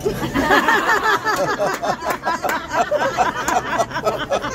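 A group of people cheering and whooping over one another, with scattered sharp clicks among them.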